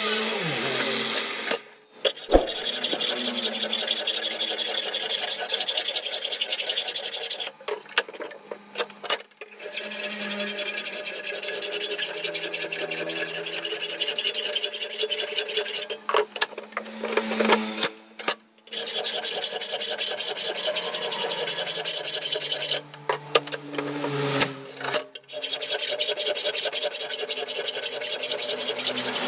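Hand file rasping back and forth along a rusty steel crowbar clamped in a vise, filing down its surface. Long runs of strokes are broken by several short pauses.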